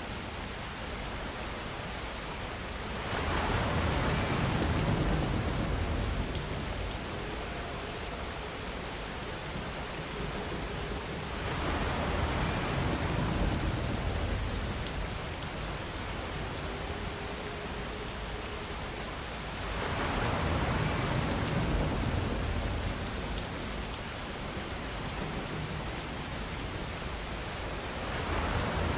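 Steady rain with wind. The rushing noise swells louder and eases off again about every eight seconds, with a low rumble in each swell.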